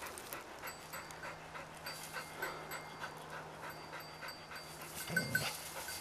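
A dog panting faintly and rhythmically, with faint high ticks repeating along with it and a short low sound about five seconds in.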